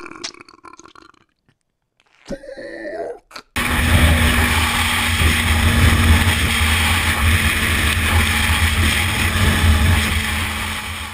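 Wind rush and engine noise picked up by a helmet-mounted camera on a Kawasaki sport bike riding at freeway speed, with a deep steady rumble. It starts suddenly about three and a half seconds in, after a brief near-silent gap.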